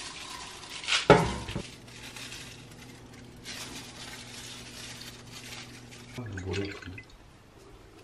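Kitchen handling sounds: a loud sharp knock about a second in, a low steady hum through the middle, and more clatter of kitchenware near the end.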